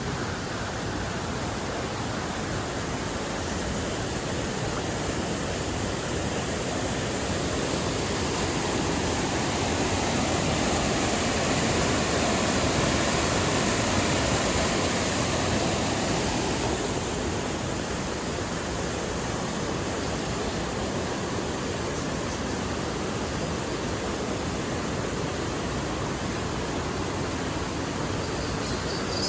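Steady rush of falling water from the Düden Waterfall, growing a little louder around the middle.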